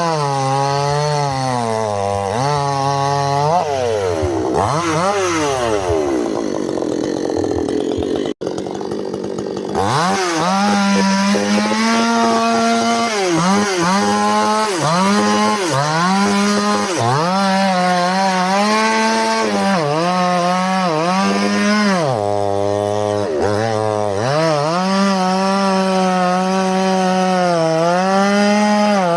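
Two-stroke chainsaw cutting wood at high revs, its pitch sagging and recovering again and again as the chain bites into the log. There is a brief break about 8 seconds in, after which the saw runs on.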